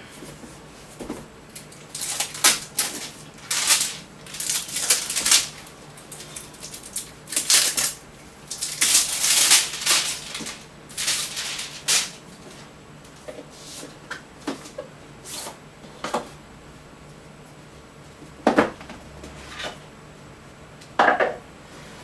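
A gaming mouse's retail box and its packaging being opened and handled: a busy run of scraping, rustling and sliding noises for the first half, then only occasional knocks and clicks.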